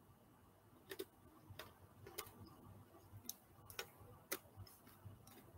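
Faint, regular ticking, a little under two ticks a second, over quiet room tone.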